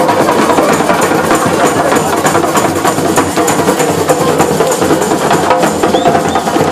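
Parade drummers beating hand drums in a fast, dense, continuous rhythm.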